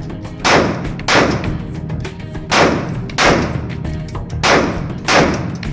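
Background music with a heavy, even beat: pairs of sharp hits about two-thirds of a second apart, repeating about every two seconds, over a steady low bass.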